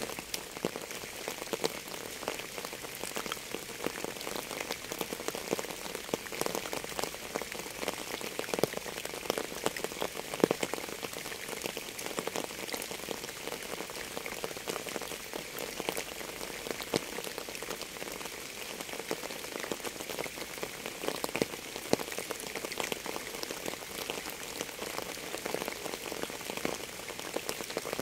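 Rain falling steadily, a dense patter of many separate drops.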